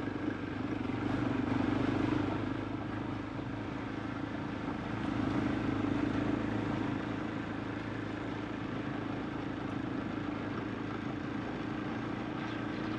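KTM enduro motorcycle engine running steadily while riding, swelling twice with the throttle.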